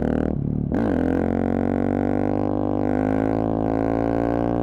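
Intro music: a low drone held on one pitch, which sets in about a second in after a short dip.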